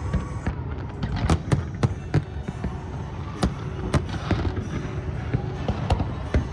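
Fireworks exploding during a grand finale: a string of sharp bangs at irregular intervals over a continuous low rumble, with a song playing underneath.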